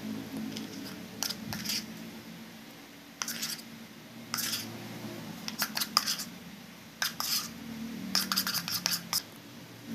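Silicone spatula scraping and knocking against the sides of a plastic measuring jug while stirring flour into cake batter, in short clusters of sharp clicky scrapes every second or so. A faint steady hum runs underneath.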